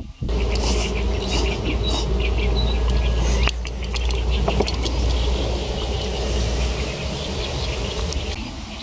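Insects buzzing outdoors, with high buzzy pulses coming and going over a steady low rumble.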